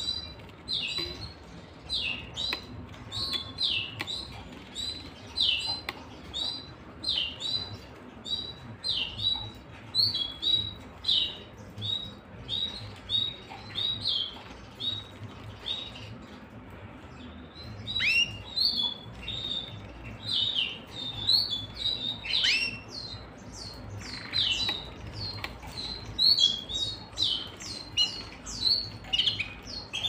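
Caged canaries chirping: short, high, falling call notes about once or twice a second, growing busier and louder over the second half with a few longer downward-sweeping calls.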